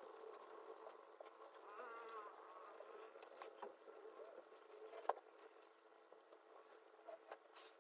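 Near silence: faint room tone with a steady hum and a few soft clicks.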